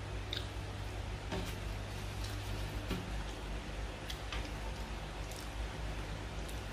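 Quiet eating and handling noises: soft, scattered clicks and ticks over a steady low hum and hiss, with no talking.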